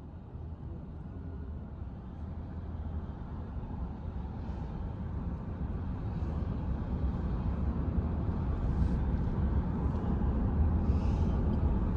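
Low rumbling noise that starts abruptly and grows steadily louder.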